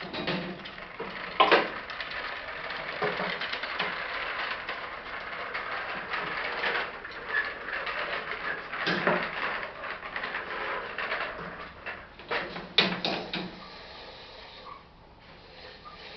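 Rattling, scraping clatter with sharp knocks about a second and a half in, around nine seconds in and twice near thirteen seconds, dying down near the end.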